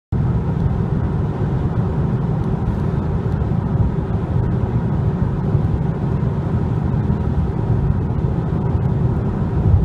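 Steady low road and engine rumble heard inside the cabin of a car driving along a dual carriageway.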